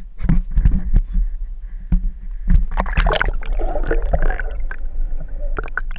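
Water sloshing and bubbling around a camera held at the waterline, with a heavy low rumble and many sharp knocks.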